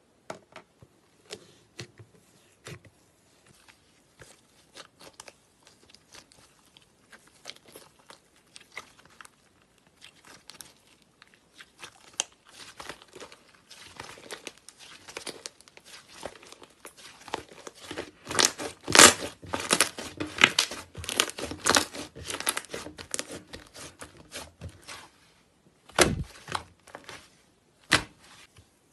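Hands squishing and stretching thick slime, making sticky crackles and pops. They are sparse at first, grow dense and loudest about two-thirds of the way through, and a heavier squelch follows near the end.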